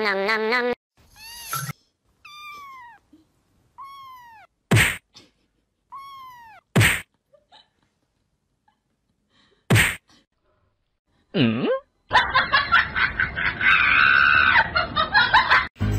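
Kitten mewing: three short, high mews that rise and fall in pitch, with a few sharp knocks between them, then a lower meow that dips and climbs again. Over the last four seconds comes a louder, rough, dense stretch of noise.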